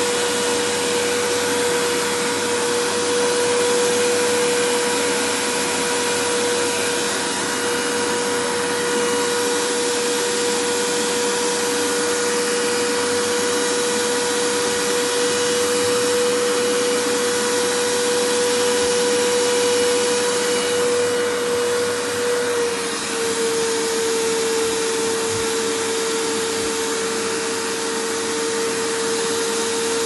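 Canister vacuum cleaner running steadily: a continuous rushing hiss with a steady motor whine, which steps slightly lower in pitch about two-thirds of the way through.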